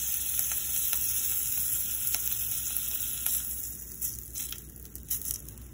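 Small shrimp frying in hot oil in a skillet: a steady sizzle that eases about three and a half seconds in, leaving scattered crackles.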